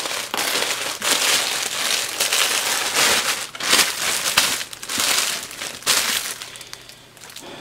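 Plastic packaging crinkling: a grey poly mailer bag and the clear plastic bag inside it rustle in repeated bursts as the item is pulled out. The bursts thin out near the end.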